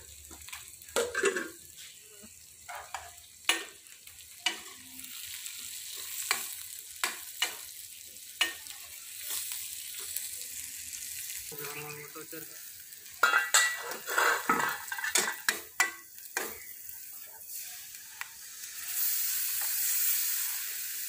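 Onions frying in oil in a steel pot on a gas burner, with a steel ladle stirring and clinking against the pot. Near the end the kadhi batter is poured in and the hiss grows louder.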